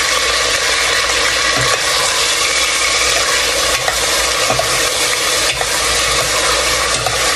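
Pork pieces sizzling as they fry in hot oil in a metal pot. A metal spoon stirs through them, scraping and knocking against the pot now and then.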